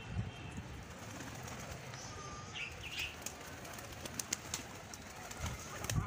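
A flock of domestic pigeons cooing, with a few short high chirps around the middle and a handful of sharp clicks a little after.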